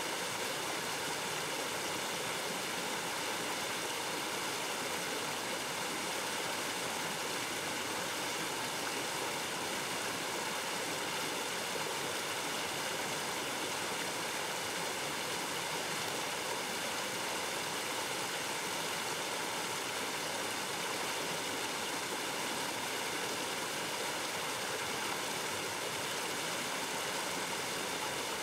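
Flowing water rushing steadily, with no change throughout.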